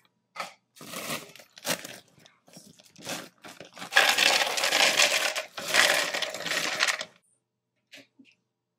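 Plastic bag crinkling as it is handled, then frozen strawberries poured from the bag clattering into an empty blender jar for about three seconds before stopping abruptly.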